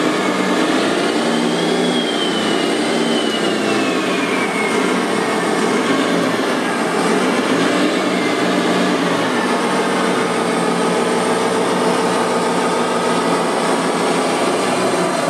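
Electric motors and gearboxes of radio-controlled construction machines running, with a whine that rises and falls in pitch over a steady mechanical hum.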